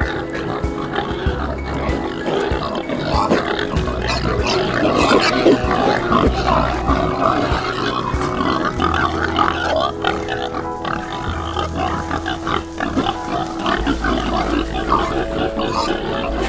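Pigs calling over one another, a dense, irregular din of several animals, under background music with steady held notes.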